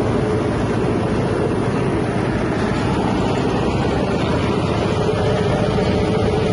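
Expired-bread plastic-separating machine running steadily, a constant mechanical hum and rumble with no change in speed.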